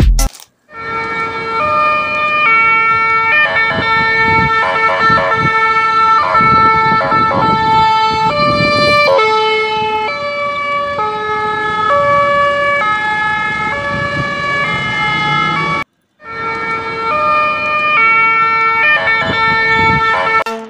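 Electronic siren from a toy ambulance's sound module: a loud sequence of electronic tones stepping up and down in pitch, breaking off briefly about 16 seconds in and then starting again.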